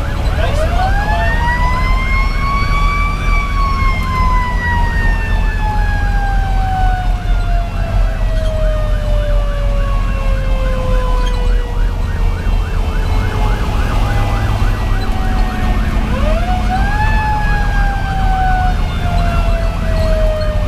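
Federal Q2B mechanical siren heard from inside the fire engine's cab. It winds up to a high wail, then slowly coasts down in pitch, and is wound up again near the end. A second siren warbles rapidly beneath it, over the low rumble of the truck's diesel engine.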